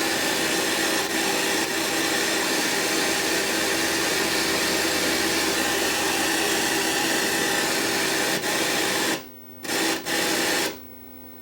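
Loud, steady static hiss with a hum from a Sony EVS7000 Hi8 deck's audio output, the noise fault from a capacitor in the audio circuit that is shorted or leaky. About nine seconds in it cuts out, comes back twice briefly, then stops near the end, leaving only a faint low hum.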